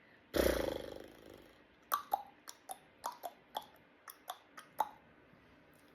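A person imitating a horse: a breathy, rattling snort, then a run of about ten sharp clicks in an uneven clip-clop like trotting hooves.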